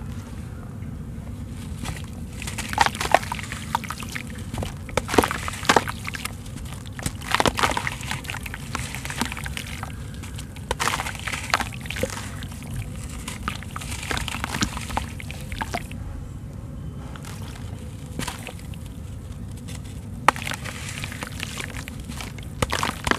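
Water sloshing and dribbling in a basin as hands squeeze and crumble soaked sand-cement lumps, with irregular crunches and small splashes as grit and pieces break off and drop in.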